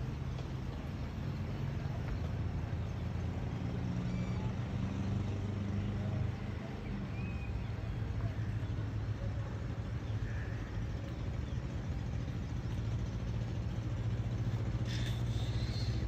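Steady low rumble of city traffic, with a faint engine-like hum under it and a brief hiss near the end.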